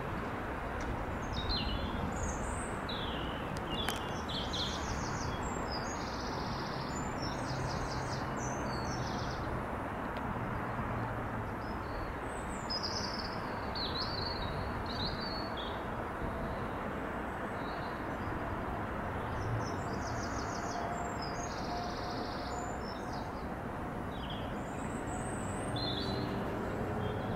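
Small birds chirping and twittering, with a couple of quick rattling phrases, over a steady low background rumble.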